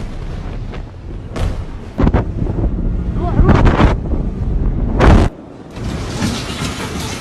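Explosion booms: a sharp bang about two seconds in, then a loud rumble and a louder boom near five seconds, cut off abruptly, followed by a quieter rushing noise.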